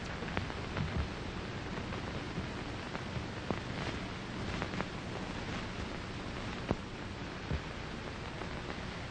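Steady hiss of an old 1930s optical film soundtrack, with scattered faint clicks and pops.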